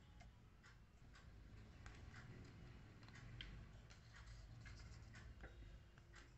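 Near silence: faint room tone with scattered soft ticks at uneven spacing, roughly two a second.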